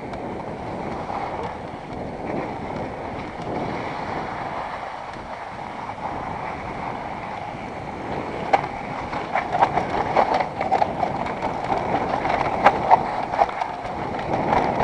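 Mountain bike rolling fast down a dirt singletrack: a steady rush of wind on the microphone and tyre noise, with sharp knocks and rattles of the bike over bumps that come thicker in the second half.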